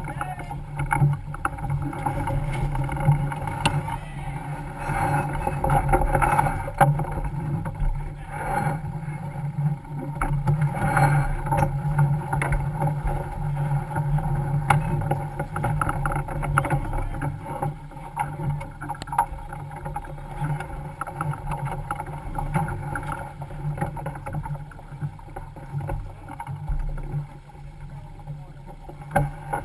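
Sailboat under way downwind: a steady rush of water along the hull and wind, with scattered short clicks and knocks from the deck gear as the crew works the lines.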